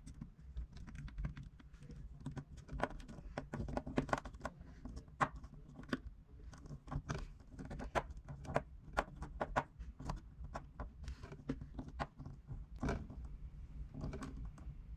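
Scattered small clicks and taps of a precision Phillips screwdriver and tiny screws being worked into an iPad mini 2's LCD bracket, over a low steady hum.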